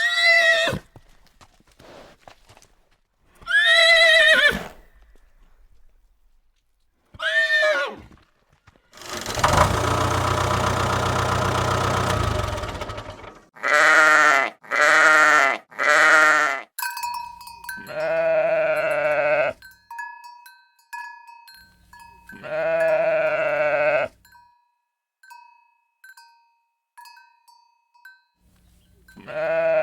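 A series of farm animal calls, one after another: several short pitched calls, a long rough call about nine seconds in, then three quick calls. From about 18 seconds, bleating calls repeat with short ringing bell-like tones between them.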